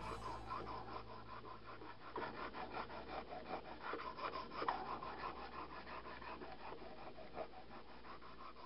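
Fine diamond sharpening stone scraping back and forth along a stainless steel knife edge held in a guided clamp sharpener: rapid, continuous rasping strokes while the new edge is honed.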